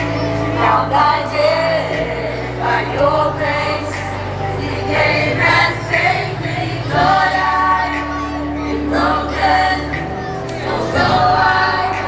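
A group of singers singing a song into microphones, amplified with a backing track whose sustained bass notes change every couple of seconds.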